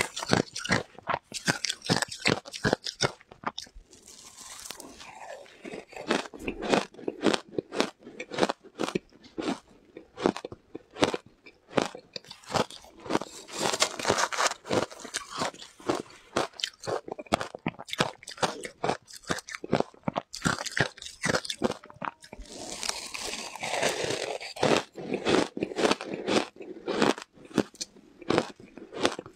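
Close-miked crunching of frozen shaved ice coated in matcha powder as it is bitten and chewed, sharp crunches coming a few times a second, with a metal spoon scraping through the ice in the bowl at times.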